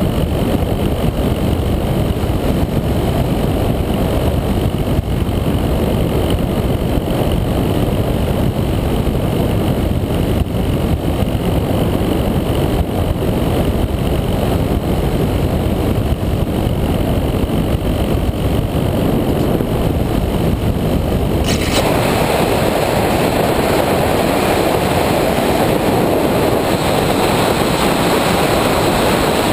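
Wind rush and the electric motor of a Multiplex EasyStar II RC glider in flight, picked up by its onboard GoPro as a steady low rumbling noise. About 21 seconds in the sound abruptly turns brighter and higher, with a faint whine, as the motor speed changes.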